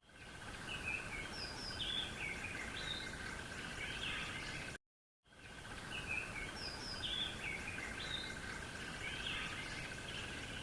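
Small birds chirping in short, repeated high notes over a steady high tone and a noise bed. The sound cuts out for about half a second near the middle, then the same chirping resumes.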